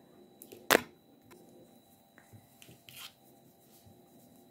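Knitting needles clicking and yarn rubbing as a row of stitches is knitted, with one sharper click about a second in and a few lighter ticks after it.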